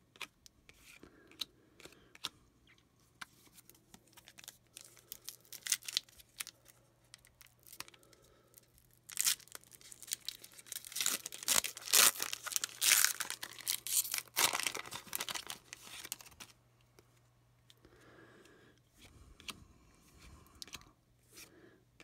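Trading cards being handled and flicked through, short light clicks, then a foil card-pack wrapper torn open and crinkled by hand, loudest for several seconds from about nine seconds in.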